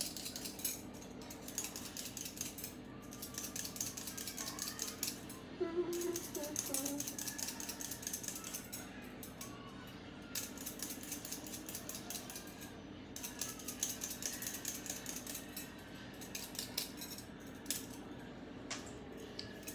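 Hand potato peeler scraping the skin off a raw potato in quick repeated strokes.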